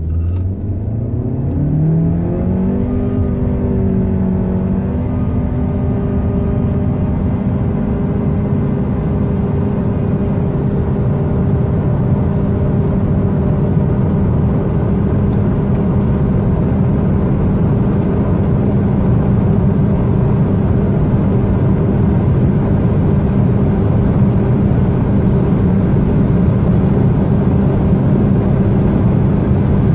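Honda Civic X sedan's 1.5-litre VTEC Turbo four-cylinder at full-throttle acceleration through a CVT without simulated gears. The engine note rises over the first two or three seconds, then holds one steady pitch near 6,000 rpm while road speed climbs, heard inside the cabin.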